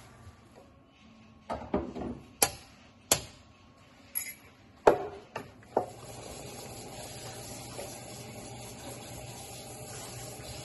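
Wooden spatula knocking against the side of a stainless steel Dutch oven of simmering curry: a run of sharp clacks, loudest about five seconds in. After that comes a steady, low simmering noise as the curry is stirred.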